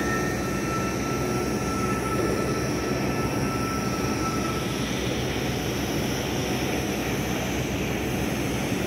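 Electric arc welding on a 2-inch pipe: the arc crackles and sizzles steadily as the electrode burns.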